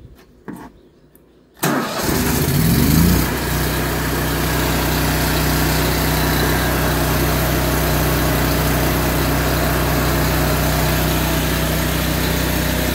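Miller Bobcat 225 welder-generator's engine starting: a few light clicks, then it fires about a second and a half in, rises in pitch as it comes up to speed, and settles into a steady run at full speed.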